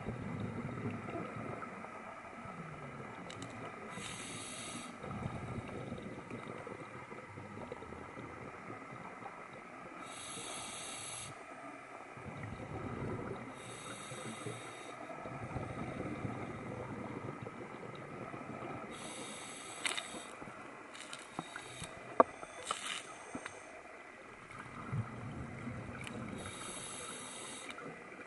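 A diver's scuba regulator in a breathing rhythm: a short hiss of inhaling through the demand valve about every five seconds, five times, each followed by the low bubbling rumble of exhaled air. A few sharp clicks come in the second half, one of them the loudest sound.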